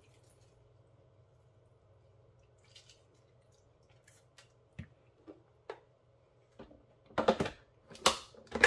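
Kitchen handling sounds made out of shot, over a faint steady hum. A few light clicks come from about halfway, then three louder knocks and rustles near the end as a lemon is brought to the granite counter.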